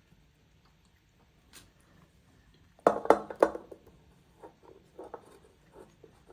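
Three sharp knocks in quick succession about three seconds in, followed by a few lighter clicks and taps while the tuna is being handled.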